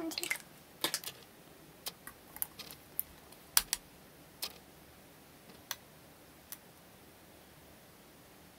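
Scattered light clicks and taps from handling makeup items and a small makeup brush, about a dozen at irregular intervals, the loudest about three and a half seconds in, thinning out after about six and a half seconds.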